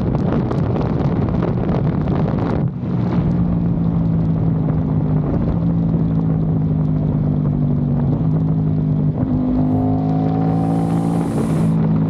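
Aprilia RS660's parallel-twin engine through a Mivv Delta Race exhaust, with heavy wind rush at first; about three seconds in the rush drops away and a steady engine drone remains as the bike slows from highway speed.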